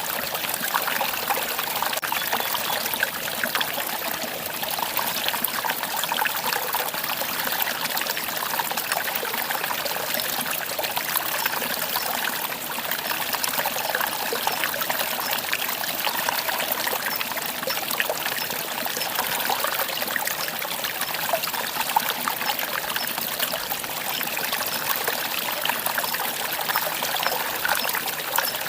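Small mountain stream running steadily in a valley, a continuous trickling babble of water.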